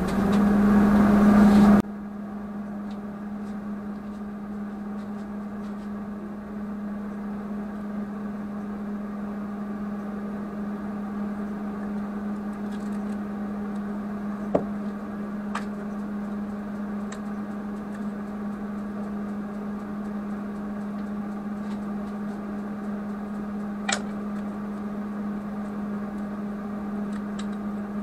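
An electric motor spins up with a loud rush of noise for about the first two seconds, then runs on with a steady hum. Over the hum come a few sharp clinks, about a quarter and a half minute in, as magnetic welding squares are set against the steel part.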